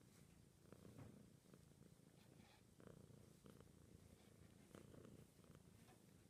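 Domestic cat purring: a faint, low rumble that swells and eases about once a second with its breathing.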